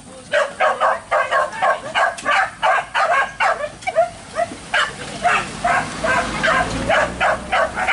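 Hunting dogs barking rapidly and continuously, about three or four barks a second. A low rumble joins underneath in the second half.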